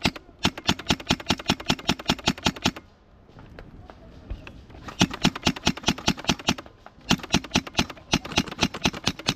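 Airsoft rifle firing in rapid bursts of about seven shots a second: a long burst of roughly two and a half seconds, a pause, then several shorter bursts.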